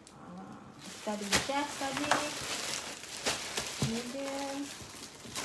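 Plastic wrapping crinkling and rustling as a handbag is lifted out and handled in its plastic bag, a steady crackle with a few sharper rustles.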